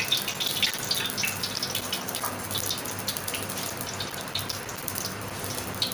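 Ghee heating in a steel pot with a few green cardamom pods in it, sizzling with a steady fine crackle of small irregular pops.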